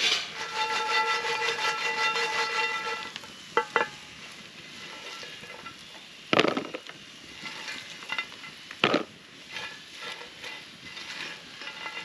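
Potatoes and vegetables sizzling in a skillet over a campfire, with metal tongs clicking and knocking against the pan several times as the food is turned and lifted out. A steady whistling tone sounds for about the first three seconds.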